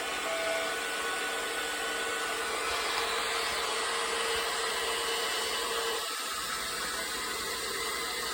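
Portable air compressor unit running with a steady whirring hiss and a faint held tone, which shifts slightly about six seconds in.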